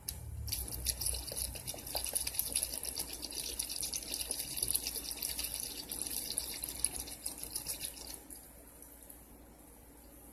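Fruit punch poured in a stream from a plastic jug into a plastic drink cooler full of cut fruit, splashing steadily. The splashing grows much quieter about eight seconds in.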